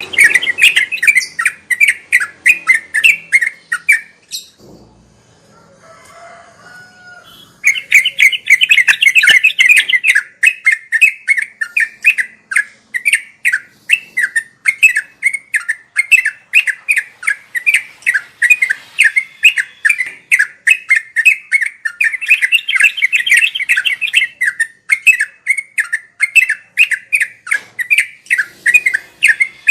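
Yellow-vented bulbul (trucuk) calling in a fast, continuous run of chirpy notes, about four or five a second. The run stops for about three seconds a few seconds in, then picks up again and keeps going.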